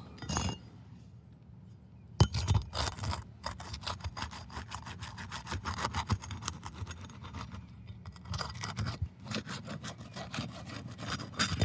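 A roofing snake worked under asphalt shingles to break their seal strips: irregular scraping and rubbing with many small clicks and crackles, starting about two seconds in.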